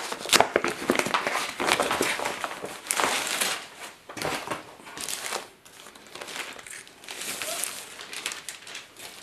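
Plastic packaging crinkling and rustling as a replacement laptop LCD screen is unwrapped by hand, a dense run of crackles that is busiest for the first few seconds and then thins out.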